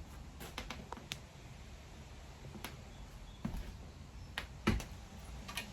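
Scattered light clicks and taps of handling, with a couple of duller knocks about three and a half and nearly five seconds in, over a faint low hum.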